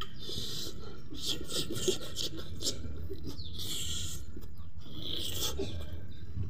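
Close-up wet slurping, sucking and chewing as a soft, greasy strip of pork fat is bitten and eaten, in several separate bursts.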